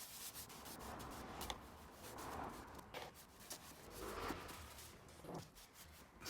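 Faint rubbing strokes against a surface, in slow, uneven swells about once a second, with a few light clicks.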